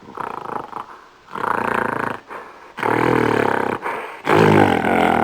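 Gorilla calling: four loud, rough calls, each about a second long, with short pauses between them.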